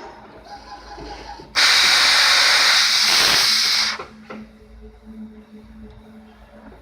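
Plasma cutter torch hissing loudly for a little over two seconds, starting and cutting off abruptly.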